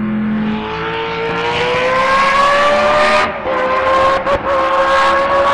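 Racing car engine accelerating, its pitch climbing steadily, with brief dips about three and four seconds in.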